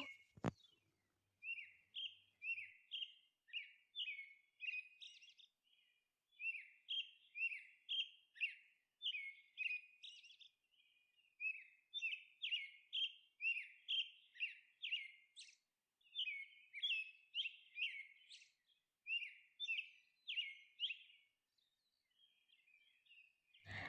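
Faint bird chirping: a steady run of short, high chirps, two or three a second, in clusters with brief pauses.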